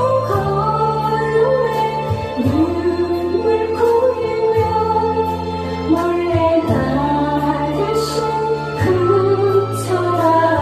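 A woman singing a Korean trot song into a microphone over backing music, with held bass notes and a steady beat.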